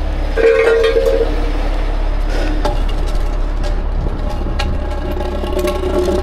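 Heavy rotator tow truck's diesel engine running steadily with a low rumble, with scattered clicks and knocks and a brief tone about half a second in.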